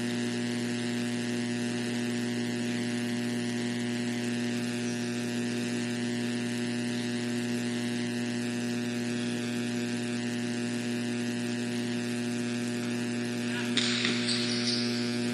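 Steady electrical mains hum with a buzz of many overtones. Near the end a burst of hiss joins it.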